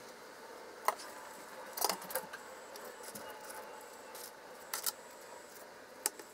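Metal kitchen tongs clicking and clinking against a metal serving platter as fried spring rolls are picked up and set down: several separate sharp clicks, with a short cluster about two seconds in.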